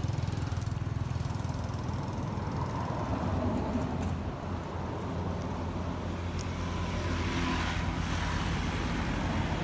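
A steady low engine hum, like a motor vehicle idling, running evenly throughout.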